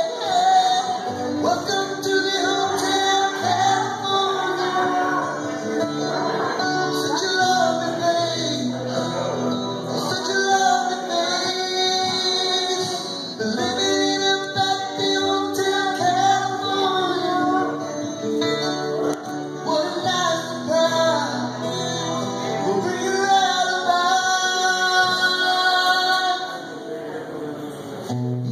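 A man singing while strumming an acoustic guitar, in a solo acoustic performance.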